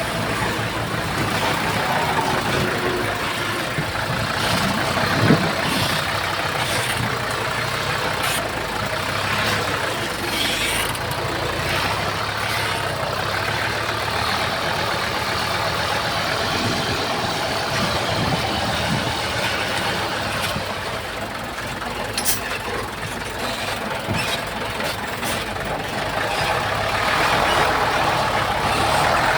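Diesel engine of heavy earthmoving machinery running steadily under load, with occasional metallic clanks, one loud one about five seconds in.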